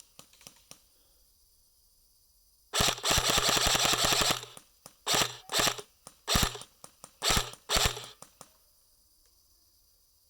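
Airsoft electric rifle firing on full auto: one long rattling burst of about two seconds, then five short bursts in quick succession.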